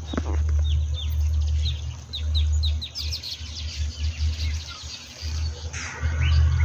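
Small birds chirping: a quick series of short, high, falling chirps, busiest from about one and a half to four seconds in, over a steady low rumble.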